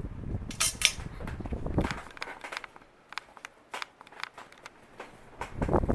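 Hampton Bay Cameron II 44-inch ceiling fan running on high speed, with a scatter of sharp clicks and ticks, the loudest about a second in. Its low rushing sound drops away for a few seconds in the middle and returns near the end.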